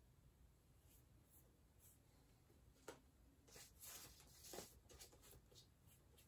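Faint strokes of a paintbrush on canvas: a short click, then a cluster of soft scrubbing strokes about three to five seconds in, over near silence.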